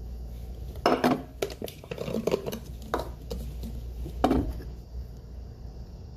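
A bowl and plastic bottles being handled and set down on a table: a handful of knocks and clatters, the loudest about a second in and just after four seconds.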